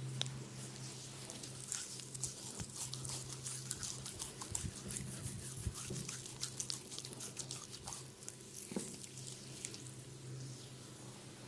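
Hands massaging skin: a continuous run of small crackling rubs and light taps over a steady low hum.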